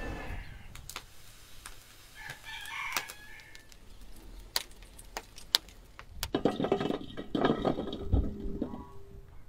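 Chickens calling: a rooster crows about two seconds in, and clucking follows from about six seconds on. Sharp scattered cracks from a burning wood fire run under it, and near the end there is a dull thump as potatoes drop into an enamel bowl.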